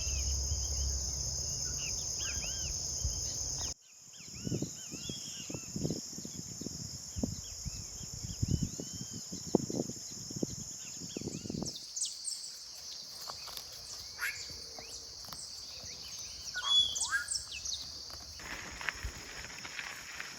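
Forest ambience: a steady high-pitched insect drone with scattered short bird chirps over it, changing abruptly about four, twelve and eighteen seconds in. Soft low knocks and rustles run from about four to twelve seconds in.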